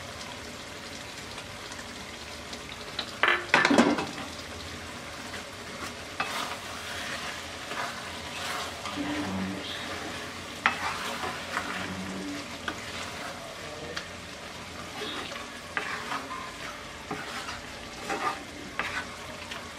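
A wooden spatula stirring a thick potato, cabbage and fish-head curry in a karahi, scraping and knocking against the pan over a steady sizzle. The loudest knocks come about three and a half seconds in.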